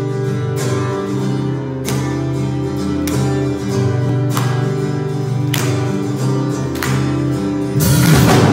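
Live worship band playing the intro of a hymn: an acoustic guitar strums chords about once a second over held chords. Near the end the drums and the rest of the band come in and the music gets louder.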